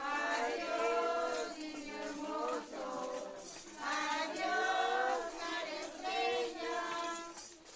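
A group of children singing together in unison: a traditional posada song sung in phrases with short breaths between them. The singing stops near the end.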